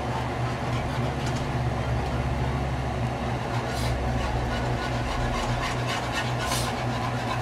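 A wire whisk stirring thick, creamy cheese sauce in a metal skillet, scraping around the pan with a few sharp clicks of wire against metal, over a steady low hum.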